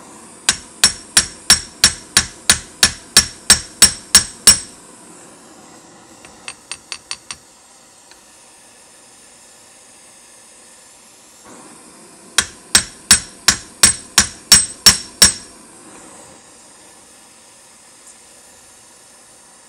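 Hand hammer peening red-hot steel rivets into a Browning 1919 machine gun's side plate: two runs of quick ringing blows, about three a second, roughly a dozen at the start and ten more later, with a few light taps between. Under it a gas torch hisses steadily, heating the rivet so the metal flows down into the hole.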